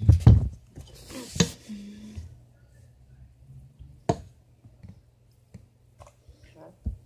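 Handling knocks: a few heavy thumps and rustles at the start, a sharp click a little over a second in, a single sharp knock about four seconds in, and scattered faint clicks and a low thump near the end.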